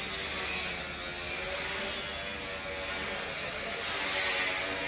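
Construction work on a steel footbridge: a power tool running steadily, with a faint wavering whine over a constant noise.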